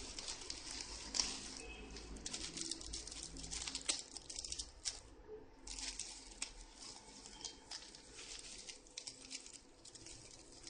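Plastic and foil packaging bags crinkling and rustling as they are handled and opened, a dense run of small crackles with a short lull a little past the middle.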